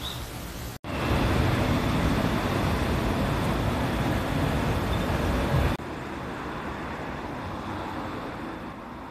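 Steady running noise of a vehicle in motion, a low rumble with a hiss over it. It changes abruptly twice: it breaks off briefly about a second in and comes back louder, then drops suddenly to a quieter level a little before six seconds.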